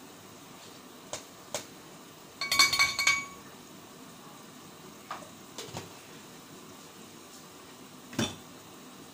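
Kitchenware being handled: a couple of light clicks, then a short run of ringing metal-and-glass clinks about two and a half seconds in, a few softer ticks, and one knock near the end.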